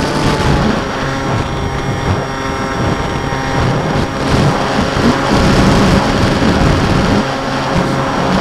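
Model aircraft's motor and propeller heard from an onboard camera, giving a steady whine, with wind buffeting the microphone as it flies and banks.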